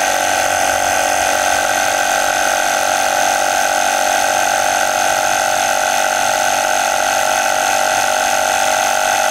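The Duracell Powerpack 450's built-in air compressor running, inflating a car tire toward 40 PSI, with a loud, steady buzz that holds its pitch.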